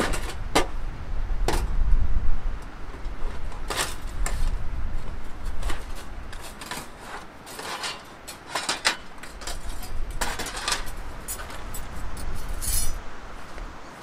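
Thin steel panels of a folding flat-pack firepit grill clinking and clacking as it is taken out of its carry bag and laid flat on grass, in a series of irregular sharp clinks. Gusts of wind rumble on the microphone now and then.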